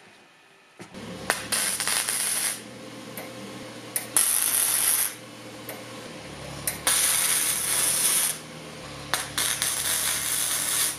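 Arc welding on a steel square-tube fence frame: the arc crackles and hisses in four bursts of one to two seconds each, over a steady hum that starts about a second in.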